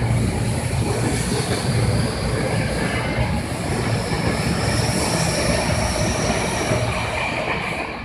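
Tobu 50070 series electric train pulling out of the station and running past at close range, a steady rumble of wheels on rail. It falls away near the end as the last car clears.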